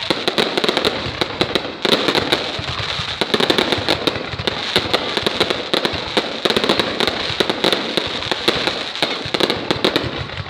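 Fireworks going off: a dense, continuous crackle of rapid pops with no pause.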